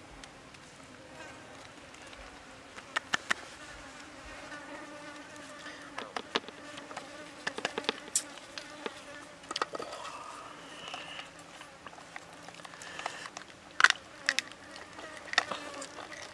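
An insect buzzing close by in a wavering drone, with scattered sharp clicks and cracks from handling and breaking roasted lobster shells, most of them in the second half.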